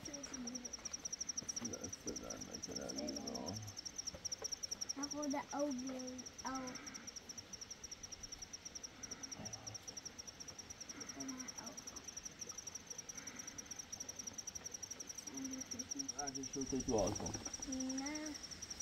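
Steady, high-pitched insect trill with a fast, even pulse, with faint voices now and then.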